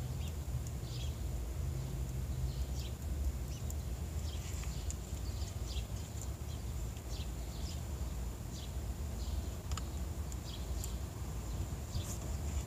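Background ambience: scattered short, high bird chirps over a steady low hum.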